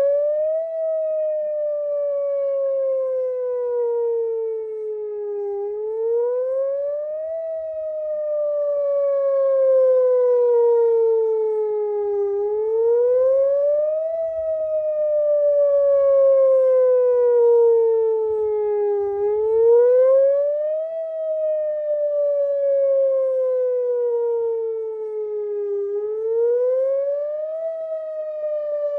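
Whelen Vortex R4 electronic outdoor warning siren sounding its wail tone. The pitch climbs quickly for about a second and a half, then slides slowly down over about five seconds, repeating roughly every seven seconds and swelling and fading in loudness. The uploader says its speaker drivers are bad.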